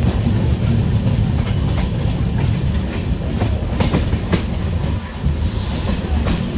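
Jnaneswari Express passenger train running along the track, heard from the coach's open door or window: a steady rumble with the wheels clacking irregularly over rail joints, several clicks a second at times.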